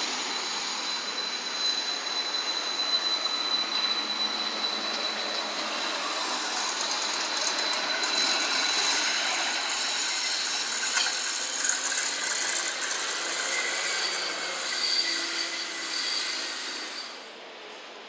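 Stadler Variobahn tram moving through a tram stop. A steady high whine runs through the first half, then wheel-on-rail noise swells as the tram passes close, loudest around the middle, and drops away near the end.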